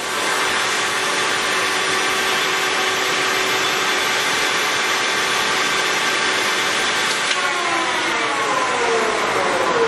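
Leblond Servo Shift engine lathe running, its headstock gear drive giving a steady whine over mechanical noise. About seven seconds in, the whine starts falling in pitch as the spindle slows down.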